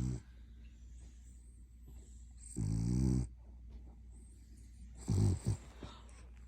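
French bulldog puppy snoring in its sleep: low snores about every two and a half seconds, the longest and loudest near the middle, the last broken into two quick snorts.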